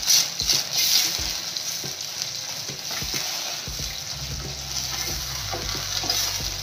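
Spice paste with curd sizzling in hot oil in a pan as it is stirred with a spoon. The spoon scrapes the pan in quick strokes during the first second or so, then the sizzle carries on steadily.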